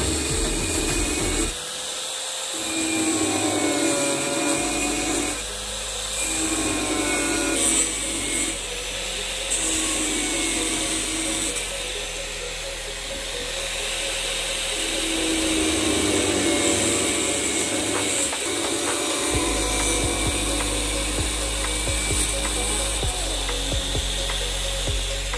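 A power tool running in workshop metalwork, with background music playing over it.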